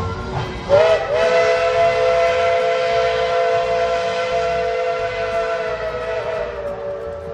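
Steam locomotive's chime whistle blowing one long blast, a chord of several notes held together. It starts about a second in, and its pitch sags slightly near the end.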